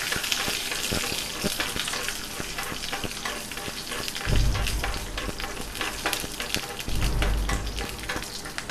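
Mustard seeds and garlic cloves frying in hot ghee for a tempering: a steady sizzle with many sharp crackles and pops from the spluttering mustard, and stirring in the pan. Two brief low bumps come about four and seven seconds in.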